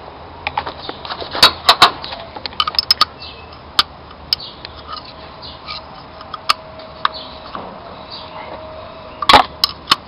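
Metal wrenches clinking and knocking against the bolt and bracket of the accessory-belt tensioner as it is undone by hand. The clicks come in scattered bunches, with several sharp knocks about a second and a half in and the loudest clank near the end.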